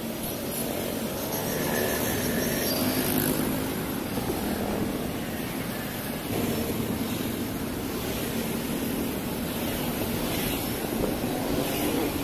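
Steady drone of passing motor traffic, engines running by continuously with no single sound standing out.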